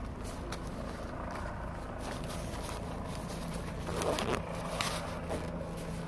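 Handling noise of goggles being put back on: rustling and scraping close to the microphone over a steady low rumble, with a louder rustle about four seconds in.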